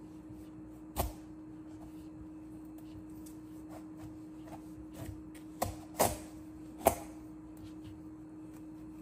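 A few sharp knocks and cracks, one about a second in and three close together about two-thirds through, as a large kitchen knife is forced through the hard rind of a raw spaghetti squash standing on a wooden cutting board.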